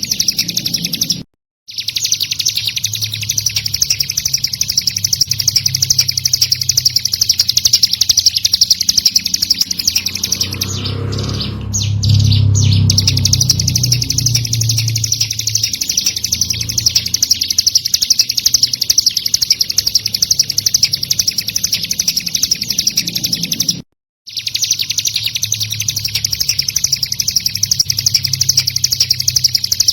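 Recorded song of a ciblek gunung: a fast, unbroken stream of high, scratchy chirps, with a low rumble underneath. The song cuts out twice, about a second and a half in and again about 24 seconds in, and thins out for a couple of seconds midway while the low rumble swells.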